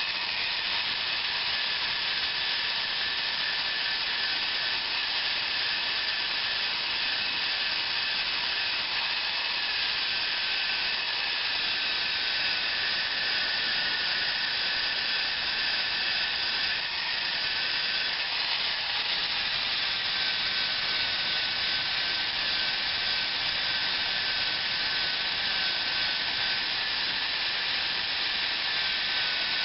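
Electric drill with a sanding disc sanding paint off a steel body panel: a steady abrasive hiss over the drill motor's whine, which drops slightly in pitch about twelve seconds in.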